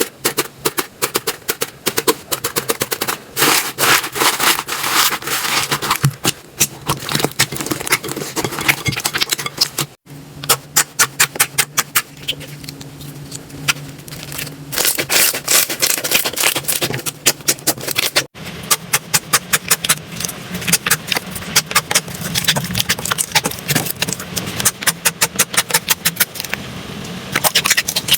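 Slime being worked by hand, giving rapid runs of crackling and popping clicks. The sound breaks off and changes character about ten and again about eighteen seconds in.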